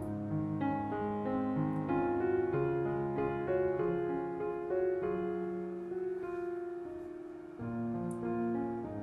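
Background piano music: a melody of single notes over held low chords.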